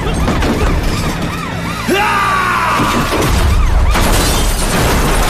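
Action-drama soundtrack: dramatic music over a low rumble, with a loud crash about four seconds in.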